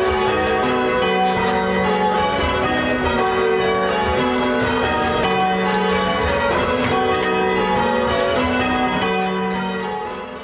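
A ring of eight Gillett & Johnston church bells being change rung, strike after strike in an even rhythm, with the low tenor sounding about every two seconds under the higher bells. The sound fades out near the end.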